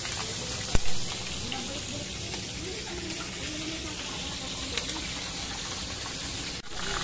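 Steady sizzle of pork deep-frying in a wok of hot oil, with one sharp knock about a second in.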